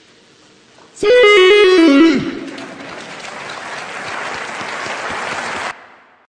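A loud comic sound effect: a pitched tone stepping down in pitch for about a second, then crowd cheering and applause that cut off suddenly.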